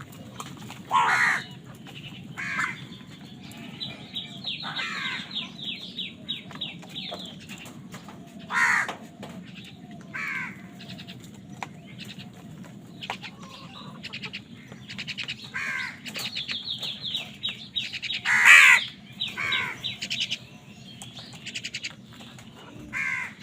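Crows cawing in harsh single calls scattered throughout, the loudest about eighteen seconds in, with two stretches of fast, repeated chirping between the caws.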